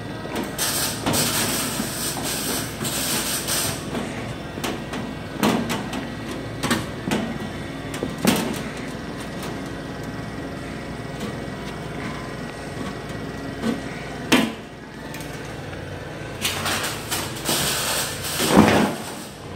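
Hand tin snips cutting sheet metal: irregular sharp metallic snips and clanks, with stretches of scraping and rattling of the sheet, over a steady low hum.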